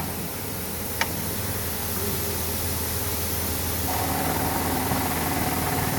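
Sack-filling machine running with a steady hum and hiss. A single sharp click comes about a second in, and a steady higher whine joins about four seconds in.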